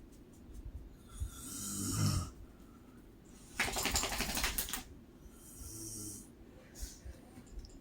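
A woman snoring in three breaths: a rumbling snore rising in strength about a second in, a louder rattling snore around four seconds, and a fainter snore around six seconds.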